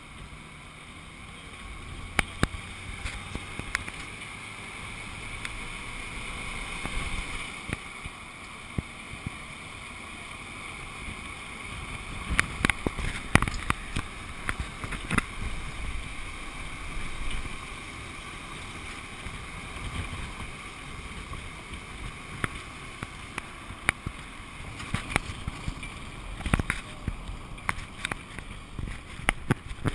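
Van driving along, heard from a camera mounted outside by its mirror: steady road and engine noise with wind on the microphone, and sharp knocks and rattles scattered through, most of them in the middle and near the end.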